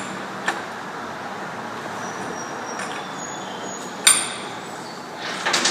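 Metal tool work on a chainsaw's bar nuts: a small click about half a second in and one sharp metallic clink about four seconds in, over a steady background noise.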